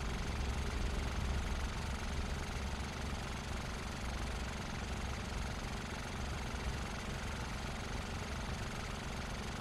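A car engine sound effect in a cartoon soundtrack, running with a low, even rumble.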